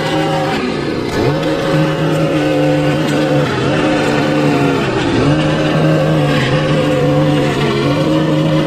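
Small gasoline engine of lawn-care equipment running at high speed. Its pitch dips and climbs back twice, about a second in and again around five seconds.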